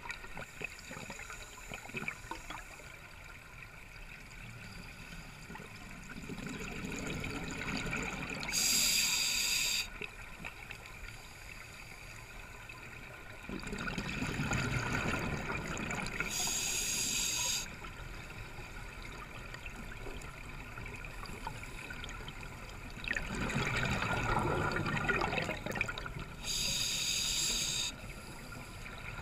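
Scuba regulator breathing underwater, three breaths: each begins as a burst of exhaled bubbles from the exhaust valve and ends with a short hissing inhale through the demand valve.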